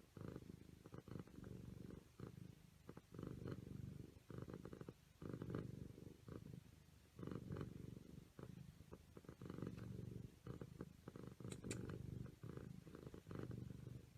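A domestic cat purring, a low rumble that swells and fades about once a second with its breathing.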